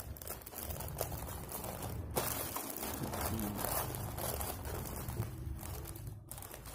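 Faint irregular rustling and crinkling of a plastic instant-noodle packet being handled while polyester fiberfill is pushed into it, over a low steady hum.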